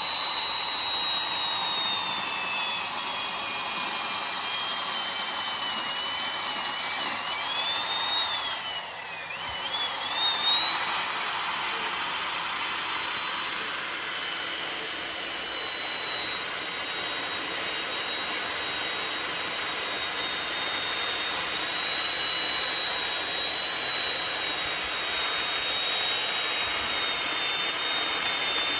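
Handheld electric power tool running at high speed with a high motor whine. About eight seconds in, the pitch sags and wavers as the tool bears into the wood, then it recovers and runs steadily again.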